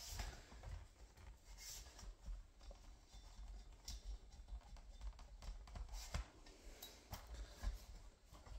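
Faint handling noise: low rumbling with scattered small clicks and knocks as the phone is moved and the cabinet parts are handled.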